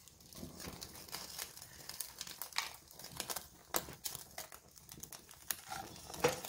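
Armagnac burning over browned wood-pigeon halves in a cast-iron casserole during a flambé: soft, irregular crackling and sizzling.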